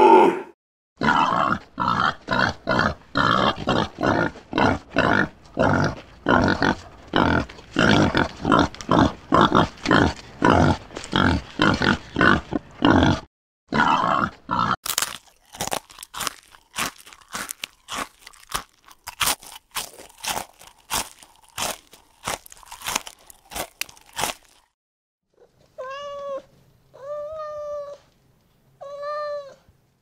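Rhythmic chewing and crunching at a few bites a second. In the second stretch the crunches are sharper and crisper, from a sloth eating. Near the end a cat meows three times, each meow about a second long.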